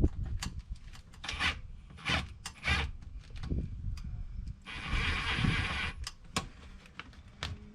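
Rubbing and scraping as a screw is worked in to fasten a fabric door bag to a side-by-side's door: a few short scrapes, then one longer rasp of about a second a little after the middle.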